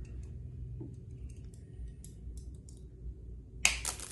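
A crimping tool's cutter snipping through the ends of the LAN cable's eight wires to trim them level: one sharp, loud snip near the end, after a few faint clicks of handling the tool and cable.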